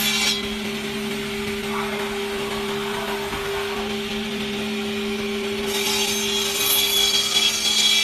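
Industrial wood-panel cutting saw machine running with a steady motor hum. Its blade cuts wood with a loud hiss just at the start, stops cutting, and begins cutting again about six seconds in.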